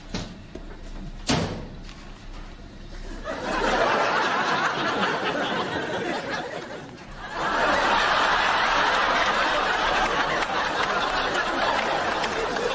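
Studio audience laughing in two long waves, the second starting about halfway through and louder. Before the laughter come two sharp knocks.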